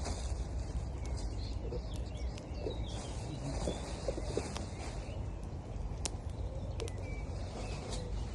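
Wood campfire crackling with occasional sharp pops, over a steady low rush of river water, with birds chirping.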